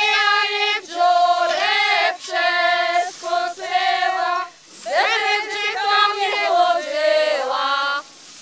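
Women singing a folk song unaccompanied, in long held notes that slide up into pitch. The song comes in several phrases, with a longer break a little over halfway, and stops shortly before the end.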